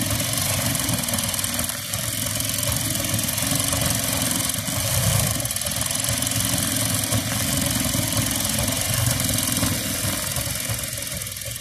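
Sewing machine running steadily at speed, its needle stitching rapidly through denim to darn a worn-through crotch; it begins to wind down near the end.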